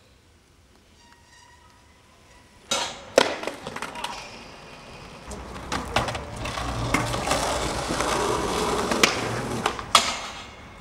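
Skateboard wheels rolling on rough concrete, broken by several sharp clacks of the board hitting the ground. Near the end comes a longer scrape of the trucks grinding along a ledge.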